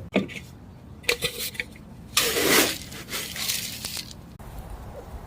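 Chicken feed being poured and scattered: a clatter of small hard pellets, loudest in a rush about two seconds in, with scattered clicks before and after.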